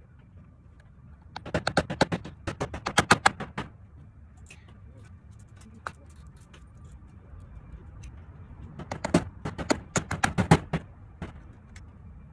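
Two bursts of rapid knocking or clattering, about eight knocks a second, each lasting about two seconds, the first starting about a second in and the second near the two-thirds mark, with a few single ticks between.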